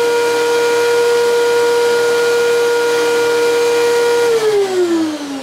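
13-inch benchtop thickness planer running with a steady high whine over a rushing of air. About four seconds in it is switched off, and the whine falls in pitch as the motor and cutterhead spin down.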